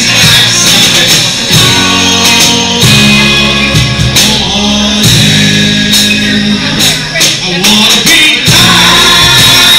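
Live band playing a song with singing, loud. Acoustic and electric guitars are strummed and picked over a cajon beat.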